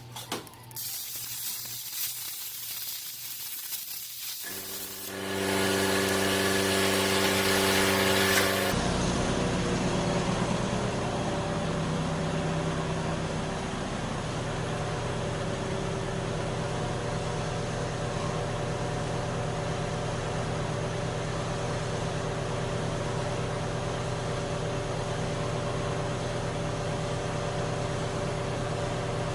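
Steady machine hum with a hiss over it, holding an even pitch, after an abrupt change about eight seconds in.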